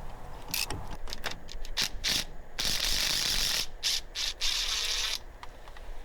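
Ratchet wrench clicking, first in short strokes and then in two longer runs of about a second each, backing out seized bearing-housing bolts on a truck's front brake assembly.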